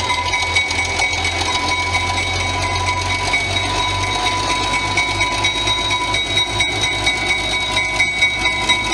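A diesel-hauled passenger train running, with a steady low rumble and a steady high whine. A regular beat sets in about halfway through.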